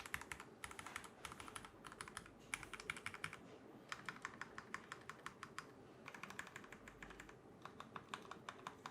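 Typing on a CM64 custom mechanical keyboard fitted with Krytox-lubed Milky Yellow linear switches. The keystrokes come in quick runs with short pauses between them.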